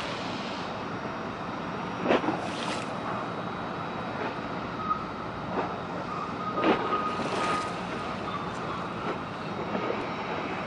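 Waterfront ambience: a steady rush of wind and water with several short sharp slaps of small waves, and a faint steady high whine in the middle.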